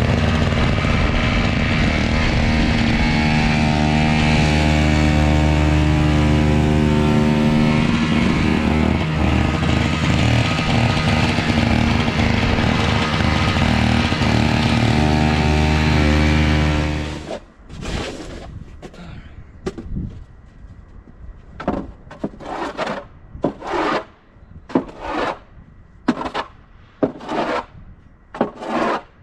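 Two-stroke snowblower engine running steadily under load, its pitch shifting a little now and then, and then stopping about 17 seconds in; the engine is low on fuel. A run of short rustling noises follows, about one a second.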